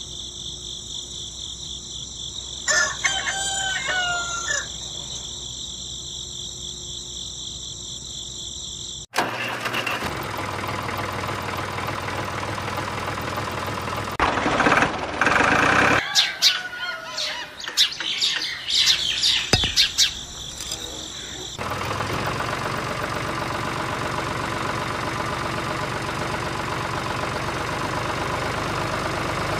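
A rooster crows once about three seconds in over a steady high-pitched drone. At about nine seconds the sound changes suddenly to a steady engine-like running noise, with birds chirping over it in the middle.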